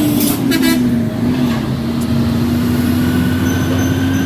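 Motor vehicle running on the road: a steady engine drone over road noise, the drone dipping slightly in pitch about a second in and then slowly climbing again.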